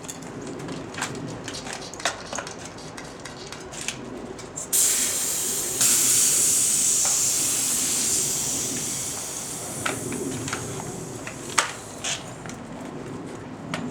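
Compressed air hissing out of bicycle tyre valves as the tubes are let down. It starts suddenly about five seconds in, grows louder a second later as another valve opens, and slowly fades. Scattered clicks and knocks from handling the wheels come before and after the hiss.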